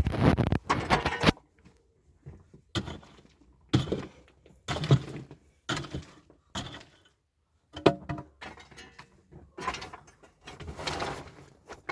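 A loud scraping, rustling noise for about the first second, then a string of separate short knocks and scrapes at irregular intervals, like objects being handled and set down.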